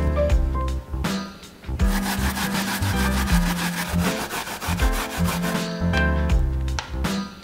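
Peeled Asian pear scraped on a plastic grater for about four seconds, a steady rasping sound, over light background music.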